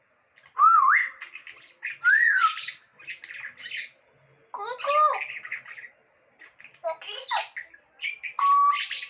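Pet parrot whistling and squawking in short bouts: a rising whistle about half a second in, an up-and-down whistle around two seconds, harsh chattering calls, and a held whistle near the end.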